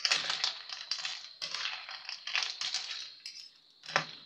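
A metal spoon stirring telescope snails and vegetables in a metal pan: repeated scraping and clinking of spoon and shells against the pan, with one sharp clink near the end.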